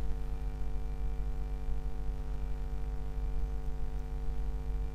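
Steady electrical mains hum with a buzz, with nothing else over it.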